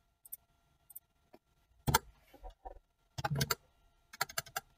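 Computer keyboard being typed on: a few scattered key taps, then quick runs of keystrokes about three and four seconds in.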